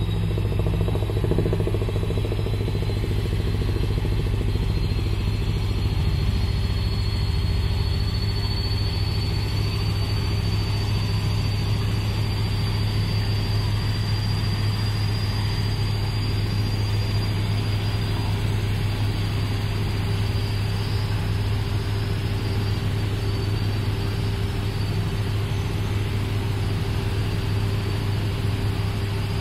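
Helicopter running steadily: a constant low drone with a high whine on top that climbs slightly over the first several seconds, then holds level.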